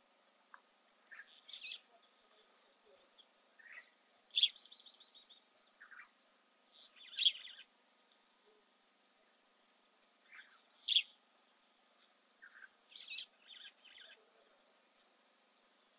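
Wild birds calling: short chirps in small clusters every couple of seconds over a quiet background, with a few louder, higher calls standing out.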